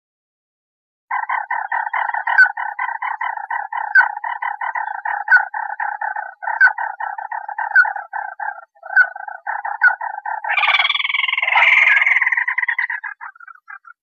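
Calls of a crake, the red-legged rail called 'chim mắt đỏ' or 'ti nỉ' in Vietnam: a fast, dry rattle of notes with a louder accented note about every second and a half. About ten seconds in it turns into a louder, harsher, higher squealing that fades out near the end.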